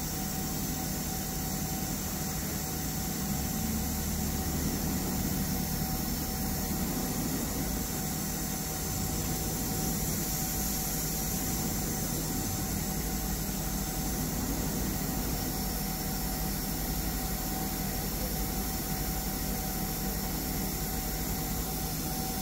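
Heliner CNC router running with its axes moving and the spindle off: a steady low hum and hiss with a faint steady tone, barely louder than the workshop's background noise.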